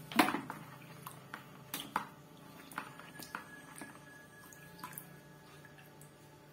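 PVC water pipe dipped into a plastic basin of water to cool and set a freshly heat-formed joint: a sharp splash just after the start, then light sloshing and drips as the pipe is turned in the water and lifted out.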